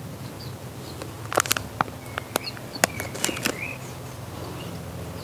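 Leek seedlings being pulled apart from a plastic seedling tray, a quick run of small clicks and crackles in the middle, over a low steady hum and a few faint bird chirps.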